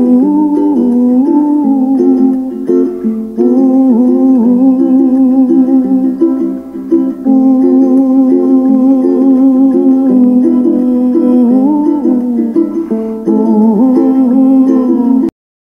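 Background music with a wavering melody over steady sustained notes, cutting off abruptly near the end.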